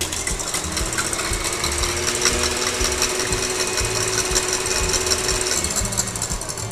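KitchenAid Classic stand mixer running steadily with its wire whisk beating egg whites in a stainless-steel bowl: a motor whine under the fast whirr of the whisk, whipping the whites to stiff peaks.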